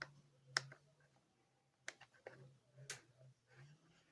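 A few faint, sharp clicks and taps, as of small hard parts being handled, over a faint steady low hum.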